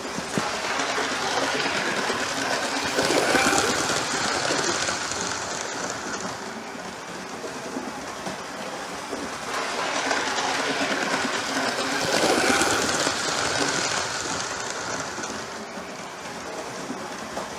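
Model railway train running along the track, its wheels rattling over the rails. It grows louder and fades away twice as it goes round the layout.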